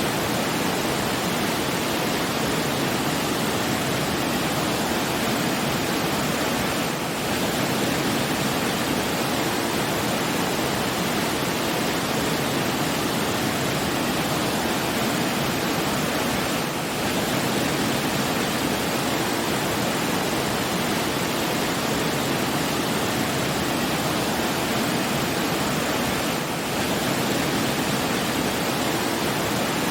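Steady rushing water with no birds or music, briefly dipping three times about ten seconds apart.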